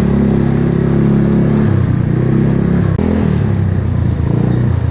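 Motorcycle engine running while riding, with a steady engine note that shifts in pitch about two and three seconds in.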